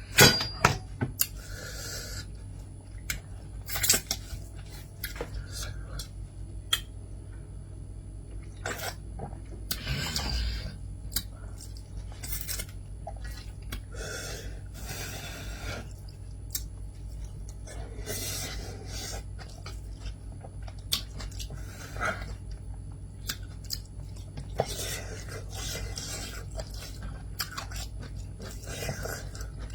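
Eating sounds: chewing, with cutlery clicking and scraping against a dish. The sharpest click comes right at the start.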